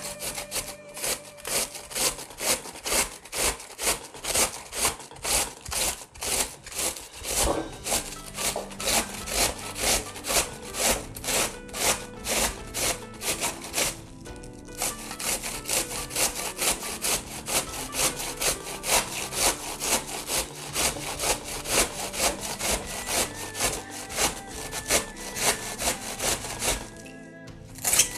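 Cabbage being grated by hand on a metal box grater standing on a wooden chopping board: steady rasping strokes, about two a second, with a short break about halfway and another near the end.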